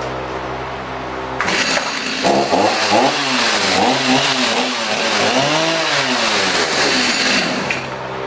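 Gas chainsaw engine coming in suddenly about a second and a half in and revved up and down several times, then cut off near the end.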